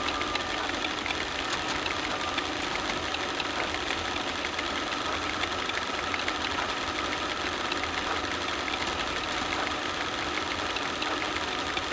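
Film projector sound effect: a steady mechanical whir dotted with fine crackle and small clicks.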